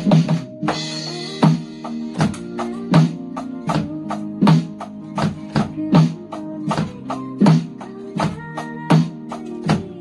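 Roland electronic drum kit played along to a recorded slow pop ballad with guitar: a cymbal crash right at the start, then a steady beat with a strong hit about every second and a half.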